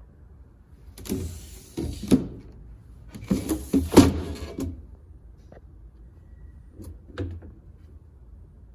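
Curved glass sliding lid of a chest freezer being slid along its track twice, each run ending in a sharp knock, then a couple of lighter knocks.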